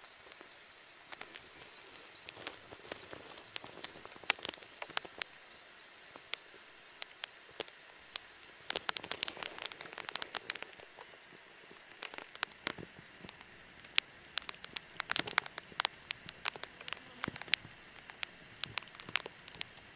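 Scattered light ticks and crackles coming in irregular clusters, with a few short high chirps now and then.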